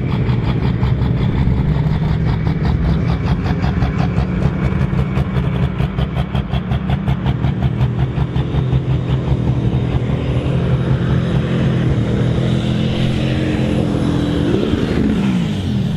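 Super Stock pulling tractor's turbocharged diesel engine running hard at high revs during a pull: a loud, steady drone with a fast rattling beat. Near the end the pitch dips down and back up.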